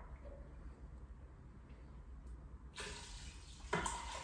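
Stock being poured from a cup into a hot multi-cooker pot, with a short splash about three seconds in and another pour near the end, over a faint steady low hum.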